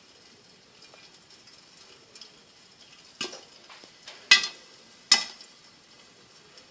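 Popcorn kernels beginning to pop in hot oil in a lidded pot: three sharp pops, the loudest about four seconds in, over a faint sizzle of the oil.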